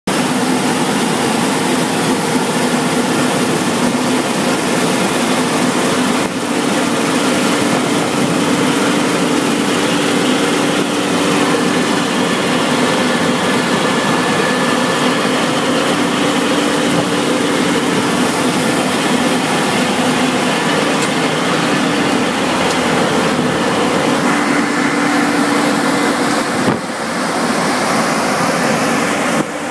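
New Holland CR 9090 combine harvester running close by: a loud, steady drone of engine and machinery with a constant hum, dipping briefly about six seconds in and again near the end.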